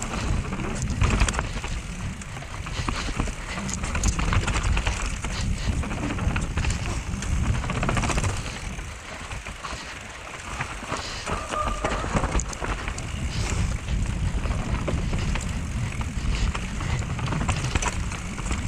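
Mountain bike descending a rooty dirt trail: a steady rumble of tyres over dirt and roots, with the bike's frame and chain clattering over the bumps. A short squeal sounds a little past the middle.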